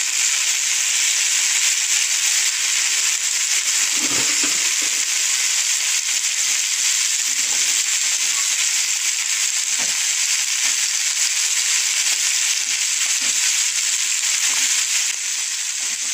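Chicken pieces for a roast sizzling steadily in a pot of spiced oil and milk. A wooden spatula stirring knocks and scrapes against the pot about five times.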